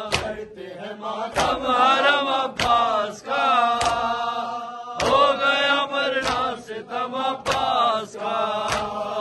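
Voices chanting an Urdu noha, the mourning lament for Abbas, with a sharp rhythmic strike about every 1.2 seconds: hands beating chests in matam.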